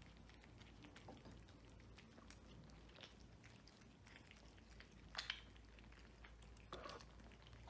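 Faint, scattered chewing and licking of cats eating wet food from plates, with two slightly louder clicks about five and seven seconds in.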